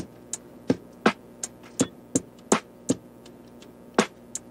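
Background music made of a sparse, dry beat: sharp clicks and taps about three a second, some louder than others.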